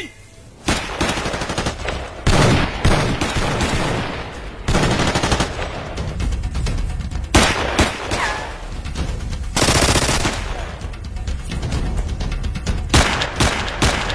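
Rapid automatic gunfire in long, overlapping bursts, starting just under a second in, with louder surges every couple of seconds and music underneath.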